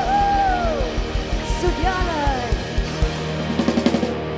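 A live rock band playing: a female singer holds a note that slides down, then sings a shorter phrase, over electric guitar and a steady bass-drum beat. A quick run of drum hits comes near the end.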